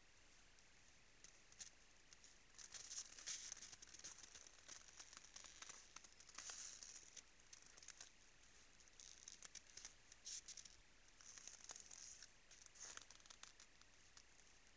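Faint crunching and crackling of frozen snow and ground as moose lick and nibble at a salt lick, coming in irregular clusters with short pauses.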